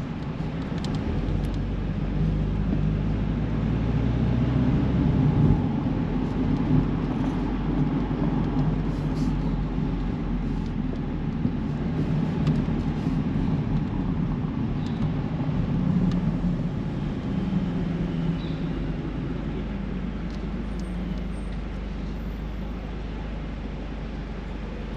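A car driving on city roads: a steady low engine and road rumble that swells about five seconds in, then slowly eases off toward the end.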